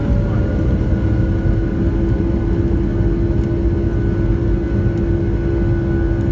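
Jet airliner's engines running, heard from inside the cabin: a steady low rumble with a steady hum and a faint whine above it.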